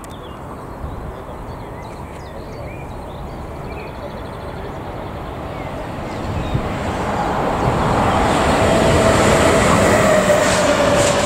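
An ÖBB class 1293 Siemens Vectron electric locomotive approaches with an intermodal freight train, its rumble growing steadily louder over the second half. A steady whine comes in as it nears, and the wheels clatter over the rails as the locomotive draws level.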